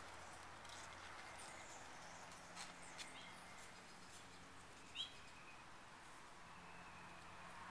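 Near-silent outdoor ambience with a faint hiss and a couple of soft clicks. A single short bird chirp comes about five seconds in.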